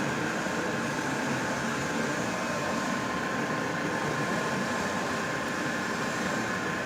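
A machine running steadily: a constant hum and hiss with a couple of high, steady whining tones and no change in speed.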